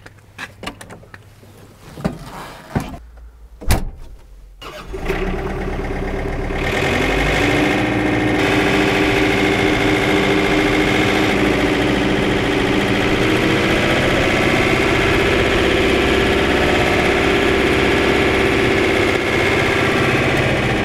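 John Deere 4066R compact tractor: the cab door clicks and shuts, then its three-cylinder turbo diesel starts about five seconds in. The engine revs up as the tractor pulls away and then runs steadily.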